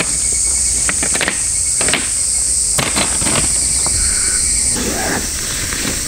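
A steady high-pitched drone of summer insects, with footsteps in sandals crunching on gravel about once a second.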